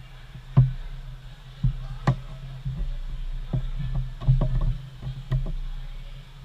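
A series of sharp, irregularly spaced clicks and knocks over a steady low hum.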